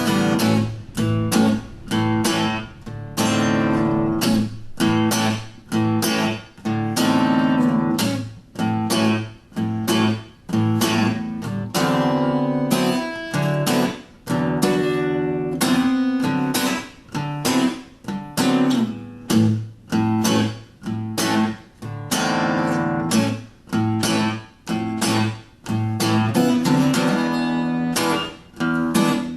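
Acoustic guitar music, strummed and picked.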